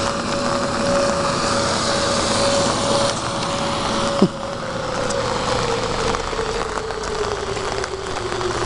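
Outdoor tornado warning siren holding one steady tone, then winding down, its pitch sliding slowly lower through the second half, over a steady hiss of rain and wind. A single sharp knock about four seconds in.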